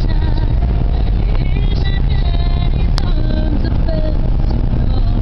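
Inside a moving car: a steady low rumble of engine and tyres as it rolls over the snow-covered lot, with music playing faintly in the cabin and a sharp click about three seconds in.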